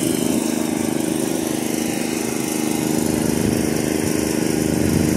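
An engine running steadily at a constant speed, a loud even drone with no revving.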